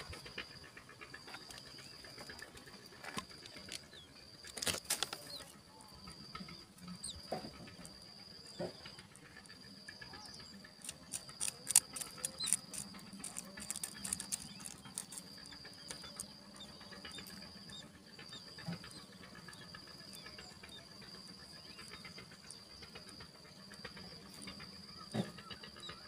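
Faint ambience at a songbird nest: a steady high-pitched whine that breaks off every few seconds, with a cluster of sharp clicks and rustles about halfway through as the parent yellow-vented bulbul lands at the nest and feeds its chicks.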